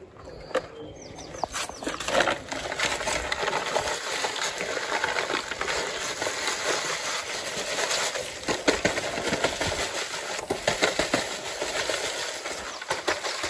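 Dry mortar mix poured from a paper sack into a bucket of wet cement plaster: a steady grainy hiss, with many crackles from the paper sack being handled.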